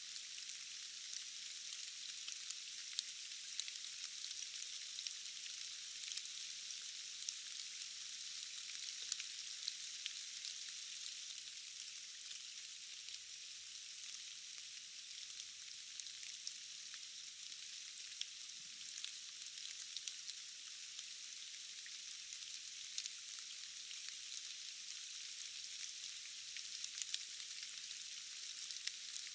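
Steady rain falling: a thin, even hiss with no low rumble, dotted with many small drop ticks.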